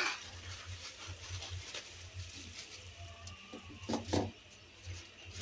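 Thin plastic grocery bags rustling and crinkling as they are handled and set down on a stone floor, with a sharp click right at the start and two louder rustles about four seconds in.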